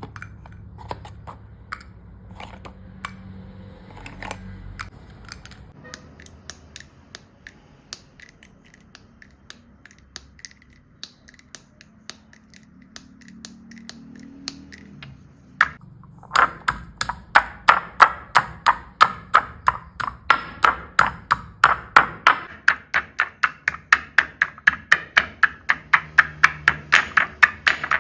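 Dry chalk being crushed and mixed: scattered crunchy clicks and taps, then, a little past halfway, a louder, regular crunching at about three strokes a second.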